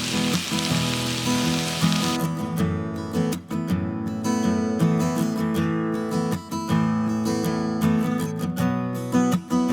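Background acoustic guitar music, with a hiss of food sizzling in a hot pan for about the first two seconds that cuts off suddenly.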